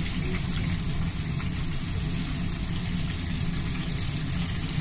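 Chicken karaage deep-frying in a pan of hot oil: a steady sizzle with small crackles.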